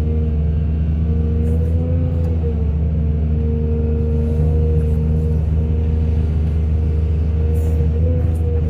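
Heavy excavator diesel engine running steadily under hydraulic load, its pitch lifting slightly about two seconds in and again near the end.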